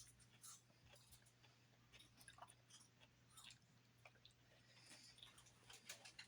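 Faint chewing of salad: soft, scattered crunches and wet mouth clicks.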